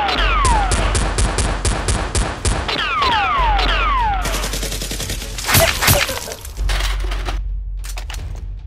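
Movie-style automatic gunfire sound effects dubbed over a foam-blaster shootout: rapid shots at about five a second, with several falling whistles and a loud crack a little past halfway, thinning to scattered single shots near the end.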